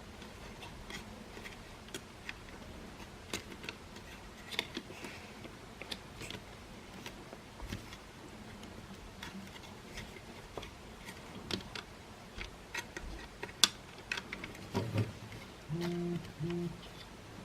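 Irregular small clicks and taps of plastic parts and tools being handled on a Makita CL108FD cordless vacuum, with one sharper click a little after the middle. Near the end come two short low buzzes.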